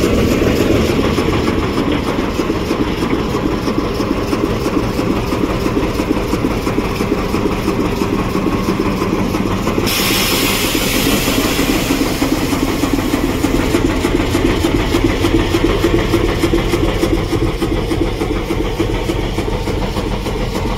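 Engine of an old diesel shunting locomotive running steadily as the locomotive moves along the track. About ten seconds in, a loud hiss starts suddenly and cuts off about four seconds later.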